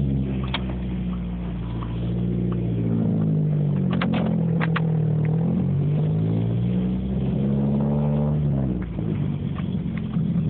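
Car engine running as the car pulls away, its pitch sliding down and up a few times with the revs before dropping away near the end. A few sharp clicks come about four seconds in.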